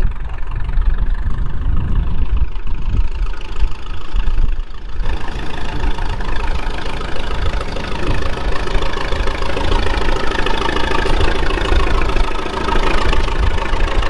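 Vintage tractor engine running at idle. It grows clearly louder and fuller from about five seconds in as the tractor is approached.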